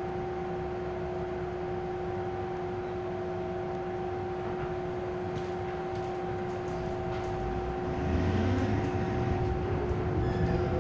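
Hong Kong MTR M-Train carriage heard from inside the cabin, standing with doors closed: a steady hum of two pitched tones over a low rumble. About eight seconds in the train starts to pull away, and its running noise grows louder with more low rumble.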